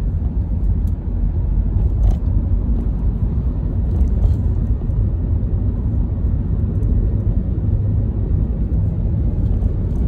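Steady low rumble of road and engine noise heard inside the cabin of a moving car, with a few faint clicks.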